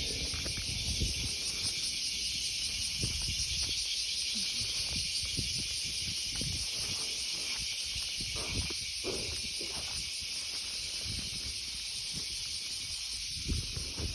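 Steady high-pitched drone of an insect chorus, with soft low rustling and knocks scattered through it.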